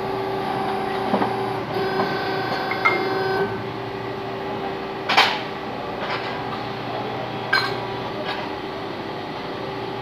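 Steady hum of a hydraulic press brake and shop machinery, with a sharp knock of sheet metal being handled about five seconds in and a lighter knock near the end.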